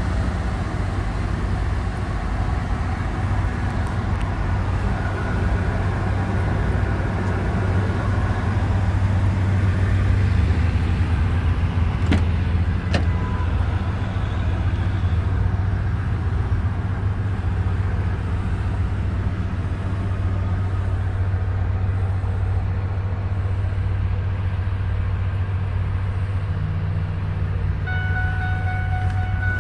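The supercharged V8 of a 2002 Ford F-150 Harley-Davidson Edition idling steadily, with two sharp clicks about twelve seconds in. A dashboard warning chime starts dinging near the end.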